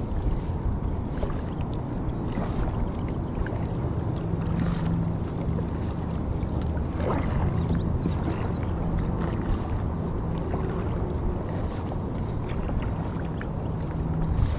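Kayak being paddled: water swishing and splashing around the paddle and hull, over a steady low hum.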